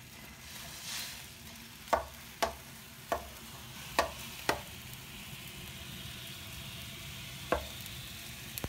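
Snow melting in a hot wok with a steady sizzle that grows stronger about halfway through. A spatula stirs it and knocks sharply against the pan six times, mostly in the first half.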